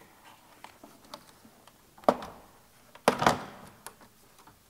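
Plastic clicking and snapping as the B8.5 Audi S4's front grille is worked loose from its retaining tabs in the bumper cover: a run of small clicks, with two louder snaps about two and three seconds in.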